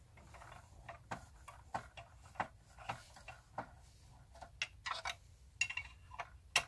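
Hard plastic parts of a 1980s MB Bigtrak toy's body being handled and pried by hand: irregular light clicks and taps, with a sharper click near the end, as the casing is worked apart.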